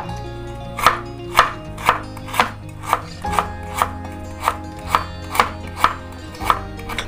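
Knife slicing galangal thinly on a cutting board, with sharp, even cuts about twice a second.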